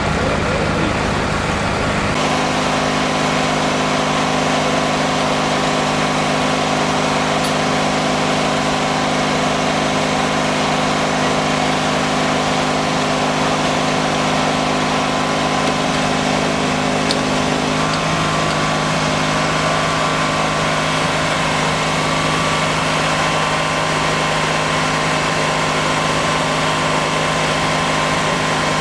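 Fire engine's motor running steadily at the fire scene. It makes a constant hum whose tone shifts slightly about two seconds in and again past the middle.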